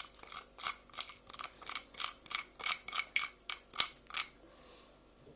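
Spoon clinking lightly against a bowl, about four quick clicks a second while sugar is added to talkan, stopping about four seconds in; a single thump comes at the very end.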